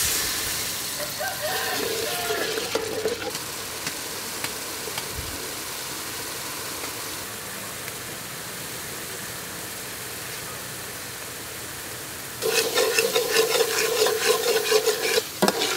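Coconut milk poured into hot oil and curry paste, then a steady hiss as the curry heats in the pot. About three seconds before the end, a ladle scrapes rhythmically against the metal pot as the curry is stirred.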